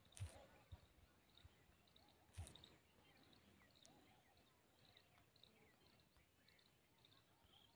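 Near silence: faint room tone with a couple of brief soft clicks.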